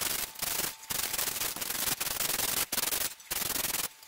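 Aerosol spray paint can hissing in a series of short bursts, about six, with brief pauses between them, as a coat of paint is sprayed on.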